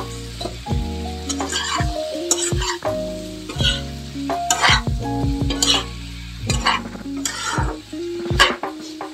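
Spatula scraping and stirring potato and cauliflower pieces in a kadhai as they fry, about one stroke a second, with a light sizzle. Steady background music plays underneath.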